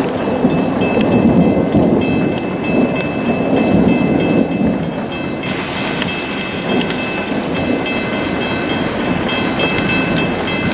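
Heavy rain pelting the car, with many small drop impacts, and a deep rumble that is strongest in the first half. From about halfway, faint steady high-pitched tones join in.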